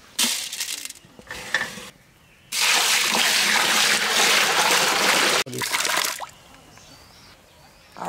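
Water being poured and sloshed: two short splashes, then a steady pour of about three seconds that cuts off suddenly, followed by a shorter splash.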